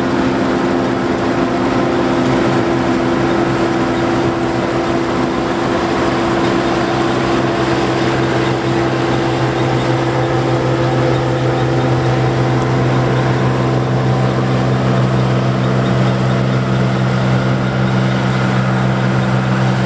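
John Deere 4425 combine harvester running steadily while harvesting wheat: a constant drone from its six-cylinder diesel engine and threshing machinery. About six seconds in the pitch of the drone changes, and a deeper hum grows stronger.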